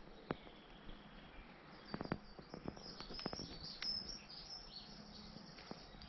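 Woodland birds chirping and twittering high in pitch, busiest from about two seconds in, over a faint outdoor background. Scattered soft crunches and clicks of footsteps on the path run through it.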